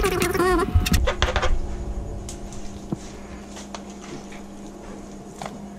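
A loud, wavering voice-like sound that cuts off about a second in. Then a steady low hum with a few faint scrapes and ticks from a metal spoon scraping ladyfish flesh off the bones on a plastic cutting board.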